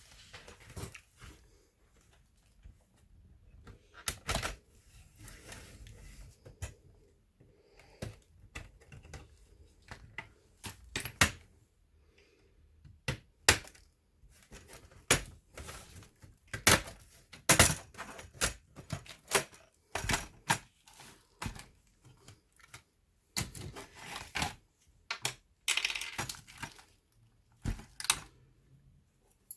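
Irregular sharp clicks and taps of small hard parts and tools being handled on an Asus X54C laptop as it is worked on, with a few brief scrapes between them.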